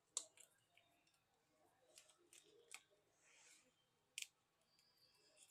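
Faint scattered clicks, a few of them sharp, and a brief soft scrape as the glued outer cover screen of a Samsung Galaxy Z Fold 3 is pried off the phone body.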